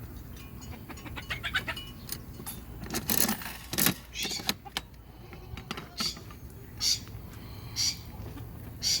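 Dry corn feed rattling and clinking as it is got out for the animals. Clicks at first, then short rattles about once a second.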